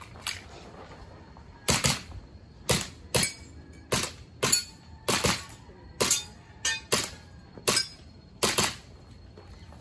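Pistol shots fired in rapid succession during a practical shooting course of fire, about a dozen sharp cracks, several of them in quick pairs.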